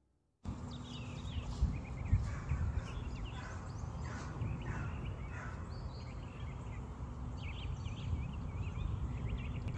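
Outdoor ambience: a steady low rumble with birds chirping, many short high chirps scattered throughout. It cuts in sharply about half a second in.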